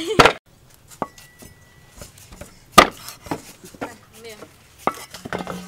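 A wooden pestle strikes once in a clay mortar, then a cleaver chops pieces of fish on a wooden chopping board in a few separate, spaced-out strokes, the loudest about three seconds in.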